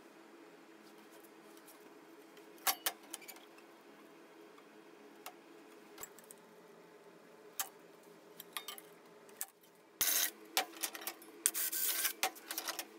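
Thin stainless steel flue pipe clinking and knocking as it is handled on a steel workbench, a few separate knocks spread over the first ten seconds. Near the end a hand-held drill bores into the pipe in short rough bursts, over a steady low hum.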